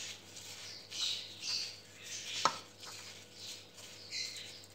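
A plastic-gloved hand squishing and rubbing a wet spice paste against a ceramic plate: a string of short, irregular squelching and rubbing sounds, with one sharp click about halfway through.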